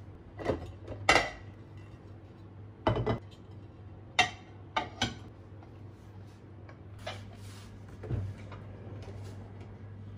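Ceramic dishes and a wooden cutting board being handled on a kitchen counter: about eight short knocks and clinks at irregular intervals, the loudest in the first half.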